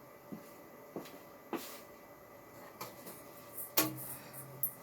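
A few scattered light knocks and taps as the coasting ceiling fan's blades are reached for and stopped by hand, the loudest knock about four seconds in, over a faint steady hum.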